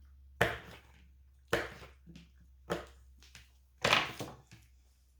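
Four short, sharp noises about a second apart from a packaged meat stick being handled and opened for tasting.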